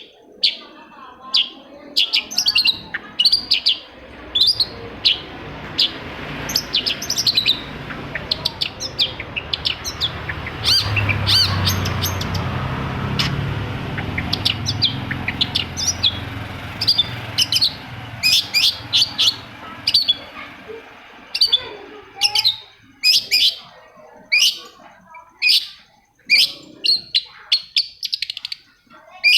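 Long-tailed shrike (cendet) singing a rapid, varied series of short, sharp chirping notes. In the middle a low rumbling noise swells up and fades away beneath the song.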